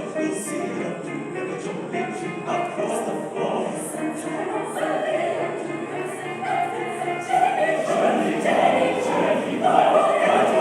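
A choir singing, many voices together in a full, sustained passage that swells louder about three-quarters of the way through.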